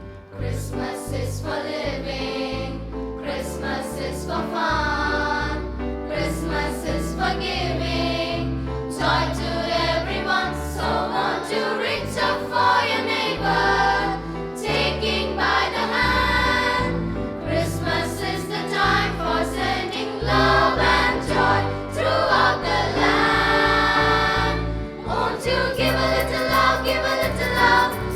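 Christian Christmas song with a choir singing held notes over a keyboard backing with a steady bass beat.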